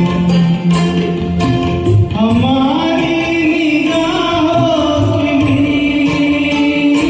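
Karaoke singing of a Hindi film song: a voice holds one long low note, then about two seconds in glides up to a higher note and sustains it, over a recorded backing track with a steady beat.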